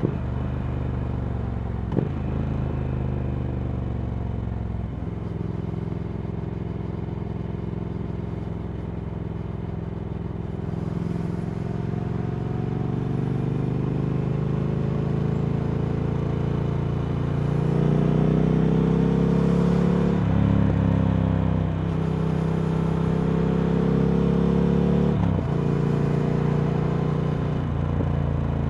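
Triumph Speed Twin 1200's 1200 cc parallel-twin engine running through a Vance & Hines slip-on exhaust while riding at an easy pace. The engine note climbs slowly and gets louder about two-thirds through, broken several times by brief dips from gear changes or throttle changes.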